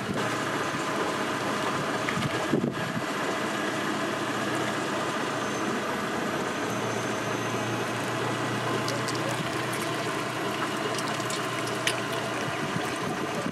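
Car engine idling steadily as the car creeps slowly forward over the road, with a few faint clicks near the end.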